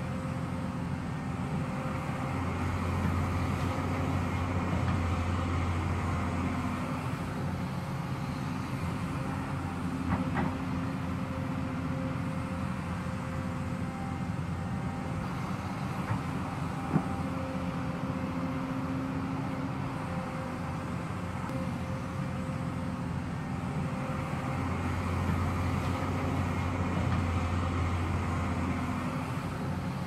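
Hyundai crawler excavator's diesel engine running as it digs, its note growing louder and heavier twice as the hydraulics are loaded. A couple of short sharp knocks come partway through.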